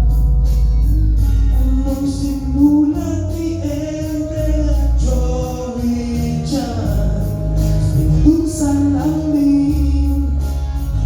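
Music: a song with a singing voice over a steady bass and accompaniment.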